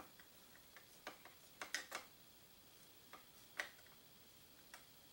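A handful of faint, irregular clicks as a screwdriver drives a screw into the steel receiver of a lever-action rifle, fitting a saddle ring.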